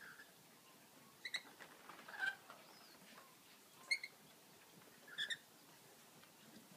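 Rainbow lorikeets giving short, high, squeaky chirps in four brief groups, a second or so apart.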